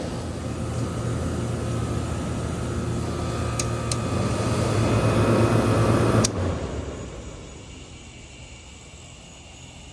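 1993 Comfort-Aire window heat pump running, its compressor and fan giving a steady hum, with two light ticks midway. About six seconds in the running sound cuts off abruptly and dies away over a second, as the unit shuts down, leaving only faint background.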